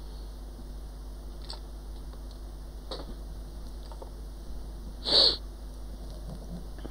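Steady low hum and hiss at a microsoldering bench, with a few faint ticks of tools being handled and one short, loud puff of noise about five seconds in.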